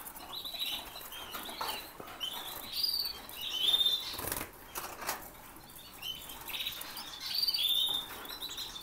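Domestic canaries in breeding cages giving short, high chirps again and again, with a few brief bursts of wing fluttering in the cage.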